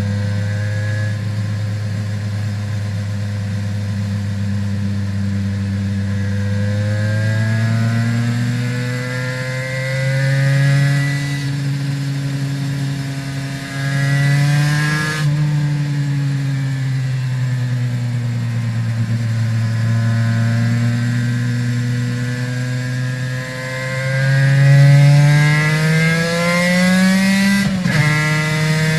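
Aprilia RS 250's two-stroke V-twin running through Arrow exhausts while riding. The engine note climbs slowly in pitch, then drops sharply about halfway through and again near the end.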